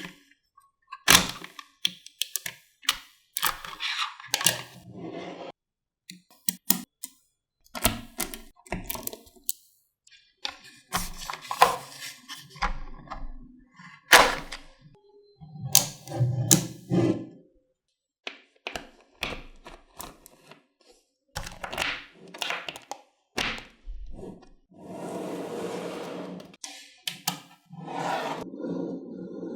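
Small magnetic balls clicking and clacking as they snap together and are pulled apart, in irregular sharp clicks with short pauses, and a longer run of rattling about two thirds of the way in.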